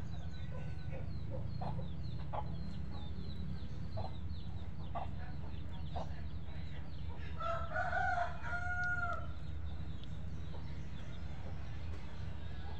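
A rooster crowing once, a pitched call of about two seconds a little past the middle, over a steady low hum.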